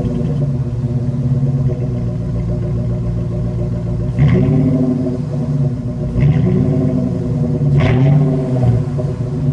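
Exhaust of a 1999 Jeep Grand Cherokee WJ's 4.7-litre V8 through a Cherry Bomb Extreme muffler with the third catalytic converter deleted: idling steadily, then three short throttle blips about four, six and eight seconds in, each rising and falling back to idle.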